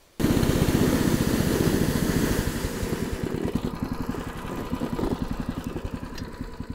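A small engine running with a fast, even beat. It cuts in abruptly and eases a little in loudness after the middle.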